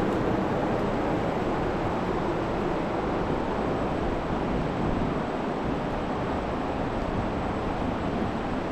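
Tractor running steadily, an even rushing noise with no change in pitch.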